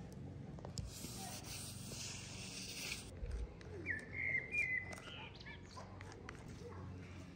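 A small bird chirping: a few short, high calls about four seconds in, over a faint low hum, with a soft hiss for a couple of seconds before them.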